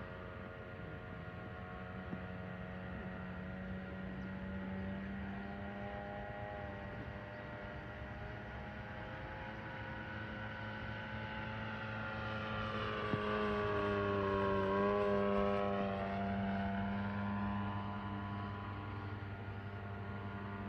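Motor and propeller of a radio-controlled scale model of the Raiden fighter, flying overhead with its pitch sliding as it manoeuvres. About thirteen seconds in it grows louder and its pitch falls as it passes close, over a steady low drone.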